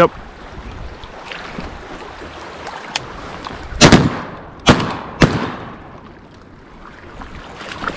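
Semi-automatic shotgun fired three times in quick succession, about four to five seconds in, the shots roughly half a second to a second apart, at ducks coming into decoys. A fainter sharp crack comes about a second before the first shot, over a steady background of wind and lapping water.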